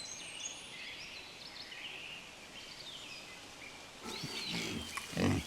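Faint forest birdsong with scattered chirps, then from about four seconds in a few low grunts from wild boar, the loudest about five seconds in.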